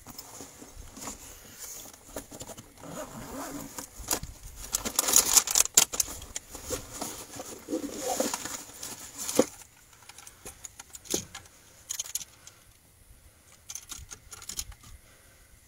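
Close handling noise: rustling and scraping of clothing and gear with scattered clicks and knocks, as an angler holds a caught flathead catfish. It is busiest in the first ten seconds and sparser near the end.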